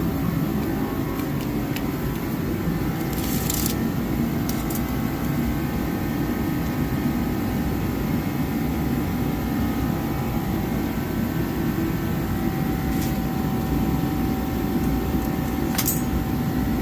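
Garage space heater running steadily, a constant low rumble with a faint hum, with a few light clicks and taps over it.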